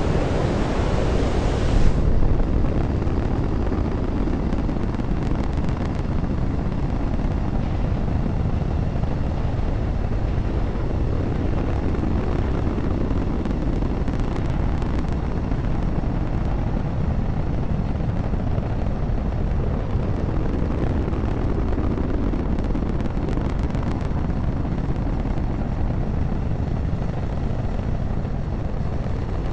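Space Shuttle solid rocket booster exhaust during powered ascent, heard from a camera mounted on the booster: a steady, loud, deep rumble. The hiss above it drops away about two seconds in.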